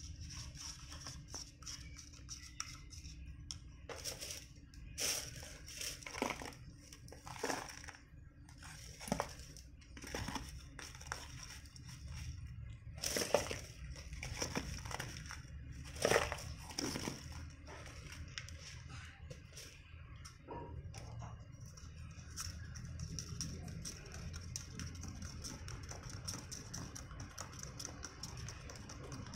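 A plastic fork clicks and scrapes in a plastic cup, and a cardboard box is handled as powder is poured from it. The clicks and rustles are irregular, bunch up in the first half, and are loudest twice near the middle.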